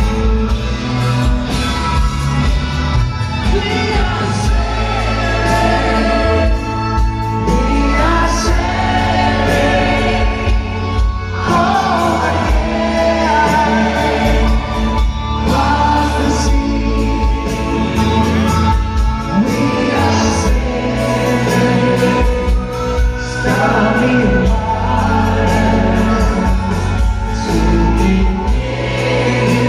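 Live band playing a slow ballad, with drums, guitars and violins under a male lead vocal and female backing singers singing together in a choir-like chorus.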